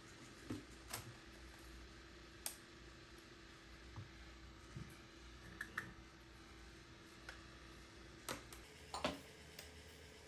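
Faint, scattered clicks and taps, about a dozen at uneven intervals, over a low steady hum that stops about eight and a half seconds in.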